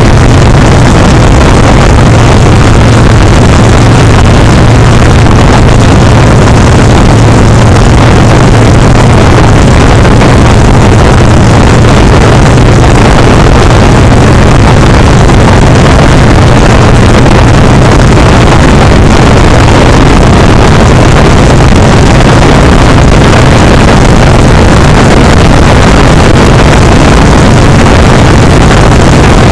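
Harley-Davidson Sportster Seventy-Two's 1200 cc V-twin running steadily at cruising speed, its exhaust pipes loud, with heavy wind noise on the microphone.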